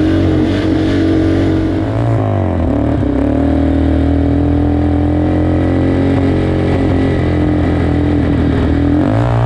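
Yamaha Warrior 350 quad's single-cylinder four-stroke engine running hard under throttle. Its pitch dips briefly about two seconds in and again near the end, then climbs back.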